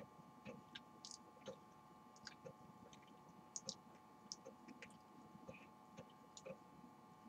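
A person chewing a mouthful of banana, very quietly, with soft wet clicks of the mouth about twice a second. A faint steady hum runs underneath.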